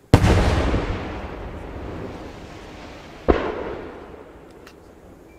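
Aerial firework shells exploding: a loud bang just after the start and a second bang about three seconds later, each followed by a long echo that slowly fades away.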